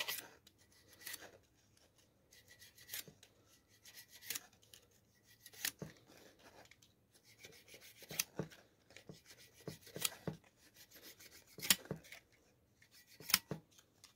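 A shoemaker's knife skiving the edge of a leather heel-counter patch held on an iron shoe last. The sound is short, sharp scraping strokes, roughly one every second or two, with quiet between them.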